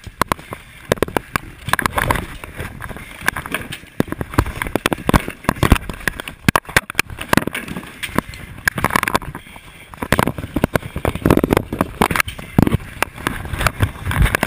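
Axe chopping and prying into charred, burned-out debris during fire overhaul: repeated irregular heavy strikes with clattering and crunching of broken material.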